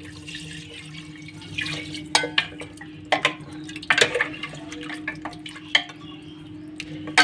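Water poured from a metal bowl into a pressure cooker of browned meat and masala, splashing in for the first couple of seconds. Then a metal ladle stirs it, knocking against the cooker's sides several times.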